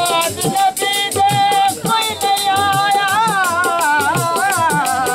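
Saraiki folk dance music: a reed pipe (been or shehnai) holds a note, then plays a wavering, ornamented melody from about halfway through. Beneath it run low dhol beats and a fast, steady rattling percussion.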